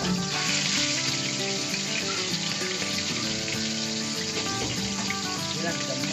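Tuna frying in hot oil in a pan, a steady sizzle that is strongest in about the first second, with background music playing over it.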